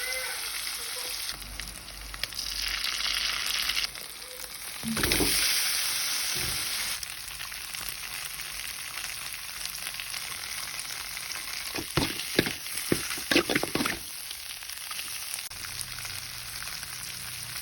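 Food sizzling in hot oil in a pan while being stirred, the sizzle swelling louder from about two to four seconds in and again from about five to seven seconds in. A quick run of sharp knocks comes about twelve seconds in.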